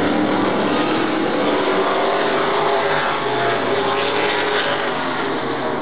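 Several stock cars racing past at full speed on an oval speedway, their engines blaring continuously, with engine notes rising and falling as they pass through a turn.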